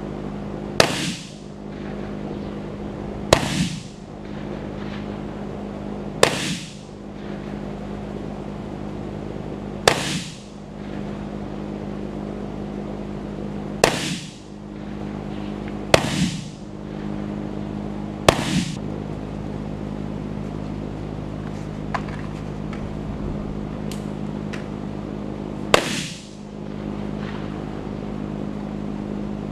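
Gunshots fired one at a time, about eight loud cracks a few seconds apart with a few fainter pops between them, over a steady low hum.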